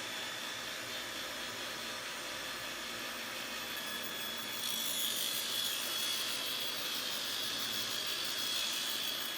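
Power saw running steadily while cutting wood for the spline joints in a mitred frame, growing a little louder and brighter about five seconds in.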